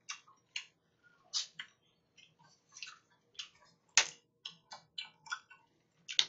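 Faint, irregular clicks and ticks from a green glass soju bottle being handled, with one sharper click about four seconds in as its metal screw cap is gripped and twisted.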